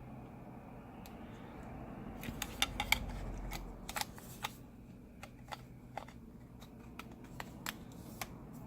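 Small, sharp clicks and taps from handling a smartphone's internal parts and small tools. They come in a dense cluster about two and a half seconds in, then continue sparser and fainter until near the end, over a low, steady background hum.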